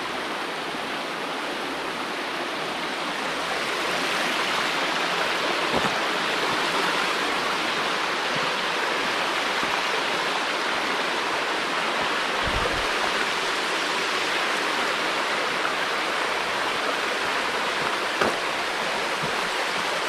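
Water of the Wedenbach's tufa-stone cascade waterfall rushing steadily.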